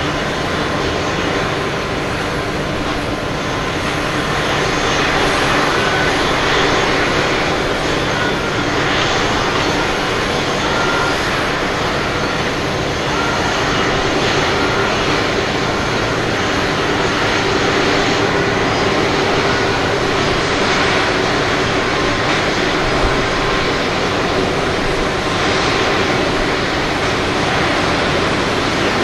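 An Airbus A330-300 airliner's Rolls-Royce Trent 700 turbofan engines running at low taxi thrust as the aircraft taxis. The engine noise is steady and even throughout.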